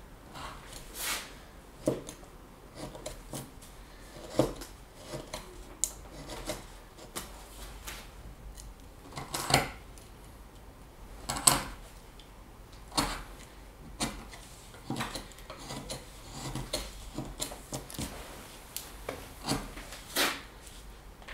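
A hand carving tool shaving and scraping a block of wood in short, irregular strokes, with a few sharper, louder cuts scattered through.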